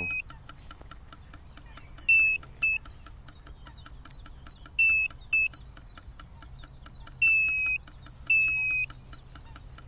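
Lucky FF918-C fish finder sounding its depth alarm: high electronic beeps in pairs, a longer beep then a shorter one, three times over.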